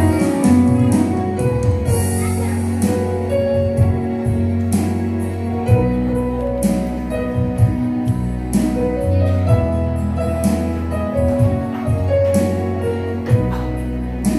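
Instrumental passage of a gospel praise song: keyboard playing held chords and a bass line over a steady beat, with no singing.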